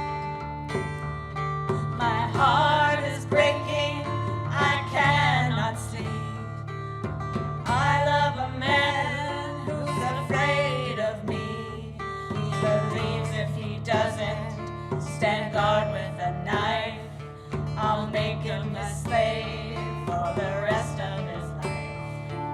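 Live acoustic song performance: steady guitar accompaniment under a wavering melody line that bends in pitch between about 2 seconds in and near the end.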